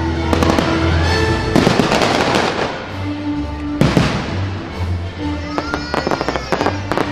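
Fireworks going off over music, with sharp bangs and crackling. There is a dense crackle about two seconds in, a single loud bang about four seconds in, and a rapid run of cracks near the end.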